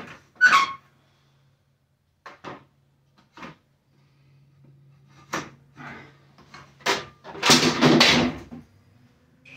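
Scattered knocks and taps of tools being handled, then near the end about a second of clattering as a long spirit level is set down among tools on a cluttered workbench.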